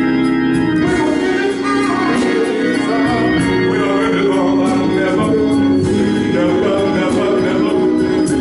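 A man singing a slow gospel song solo, with organ accompaniment holding long sustained chords under the voice.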